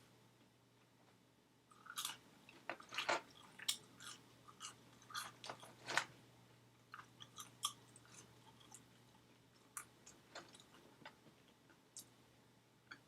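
A person chewing food close to the microphone: quiet at first, then a run of short, irregular wet mouth clicks and smacks from about two seconds in, thickest over the next few seconds and thinning out towards the end.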